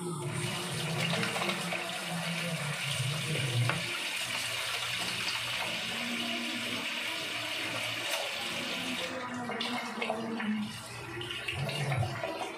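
Water running from a tap, a steady splashing hiss that fades out about nine seconds in.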